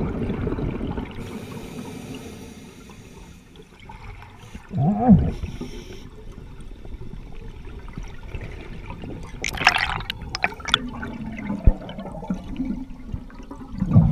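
Underwater bubbling and rushing water noise, with a short rising-then-falling tone about five seconds in and a few sharp clicks near ten seconds.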